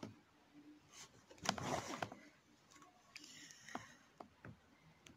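Faint rustling and light clicks of hand embroidery: needle and thread being drawn through canvas stretched in a wooden hoop, with the loudest rustle about a second and a half in.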